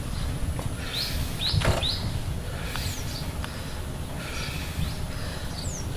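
Birds calling with short chirps that sweep up and down in pitch, repeated every second or so, over a steady low rumble.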